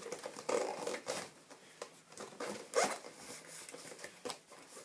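Keyboard box being opened by hand: irregular rustling, scraping and tapping of cardboard and packaging, with one stronger scrape about three seconds in.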